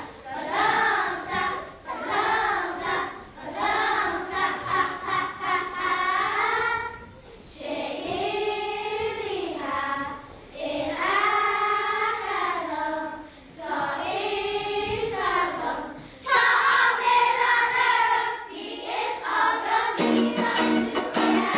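A children's choir sings together in sustained, rising and falling phrases, with short breaks between lines. Near the end the singing stops and a guitar starts strumming.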